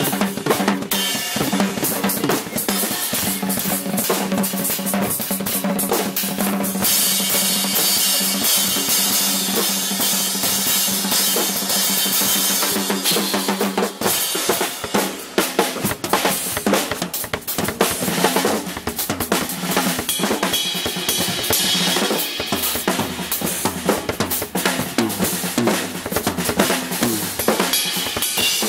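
Acoustic drum kits played fast and dense, with snare, bass drum and cymbal hits in a drum shed. A heavy wash of cymbals fills several seconds in the first half, then stops abruptly, and the hits continue.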